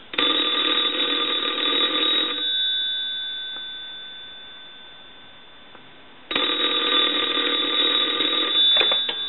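Pottery Barn Grand Phone ringing twice while hung up, rung from a test line to check the ringer after repair. Each ring lasts about two seconds with about four seconds between them, and the first ring fades slowly during the pause. A couple of clicks come near the end.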